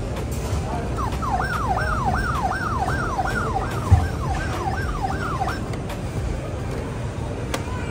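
Toy fire truck's electronic siren sounding a fast rising-and-falling wail, about a dozen cycles in a row, which stops a little past halfway. A single thump sounds near the middle, over a steady background hubbub.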